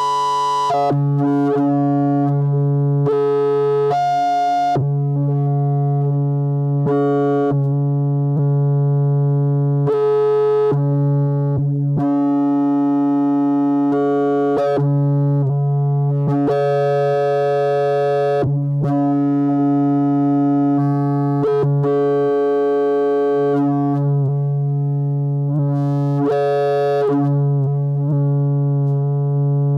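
Lorre Mill Double Knot v3 synthesizer playing a sustained, droning patch with its oscillators synced to a function generator's 5-volt square wave. A steady low note holds underneath while the upper tones step between pitches every second or so. The timbre keeps shifting between mellow and bright, buzzy stretches as the sync is changed.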